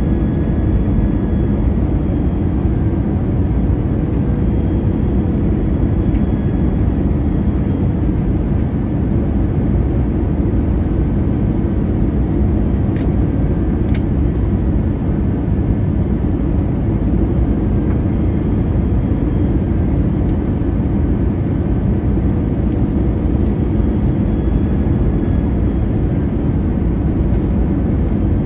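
Airbus A321 jet airliner running: a steady low rumble with faint whining tones over it, and two light clicks about halfway through.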